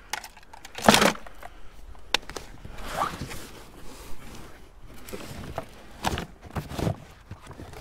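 Irregular knocks and clatter of junk being handled and shifted while rummaging through a pile of hard rubbish, the loudest a sharp knock about a second in.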